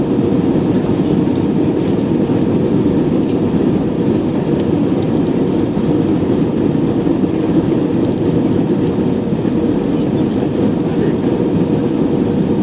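Steady cabin noise inside an Airbus A320 on approach to land: an even rush of airflow and engine noise with a faint steady hum.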